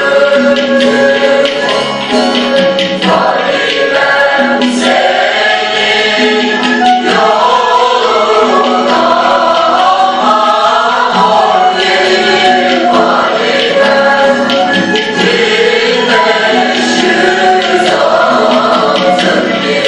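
A choir singing a Turkish folk song, accompanied by bağlama (long-necked saz), a bowed kabak kemane and a goblet drum beating steady strokes.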